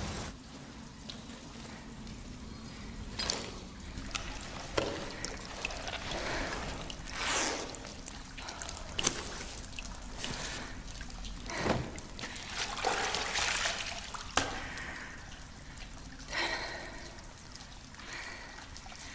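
Water trickling and splashing in short, irregular spells, as of someone scooping and washing with water, with a few sharp drips or ticks in between.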